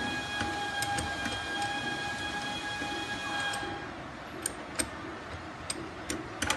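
A small electric motor whines steadily with overtones and stops a little over halfway through. Several sharp clicks of metal parts being handled follow.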